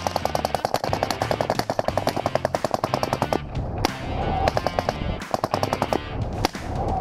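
Full-automatic rifle fire: a long rapid burst of about ten shots a second lasting some three seconds, a lone shot after a short pause, then a second rapid burst of about two seconds.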